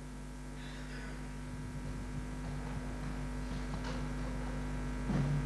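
Steady electrical mains hum through the sound system over faint room noise that slowly grows a little louder. Near the end a low pitched voice or note starts.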